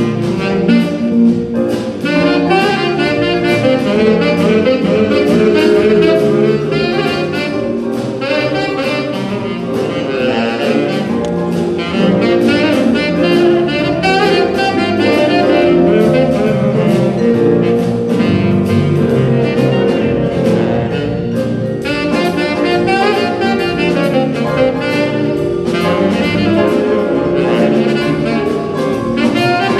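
School jazz band playing a blues, saxophones to the fore over brass, guitar and piano, with a steady beat ticking in the cymbals.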